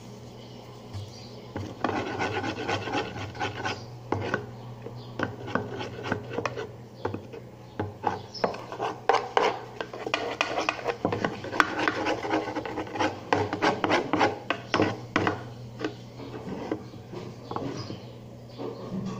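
A utensil stirring a thick slime mixture and scraping against its container: a busy, irregular run of scratchy scrapes and clicks from about two seconds in, thinning out near the end.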